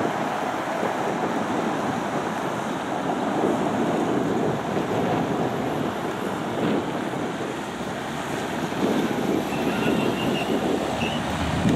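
Steady roar of city traffic, vehicles driving past on a wet road, with wind buffeting the microphone.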